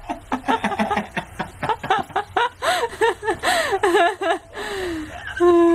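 People laughing loudly in quick, rapidly rising and falling giggling bursts. Near the end the laughter gives way to one long, drawn-out vocal note.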